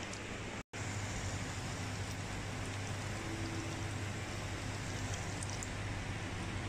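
Steady hiss of a hot wok sizzling as coconut milk is poured onto fried spice paste, with a low hum underneath. The sound drops out completely for a moment less than a second in.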